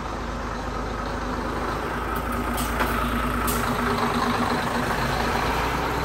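Diesel engine of a JR Bus Kanto highway coach running with a steady hum as the bus pulls away from the stop. The hum fades near the end, and a few short high ticks come about two to three and a half seconds in.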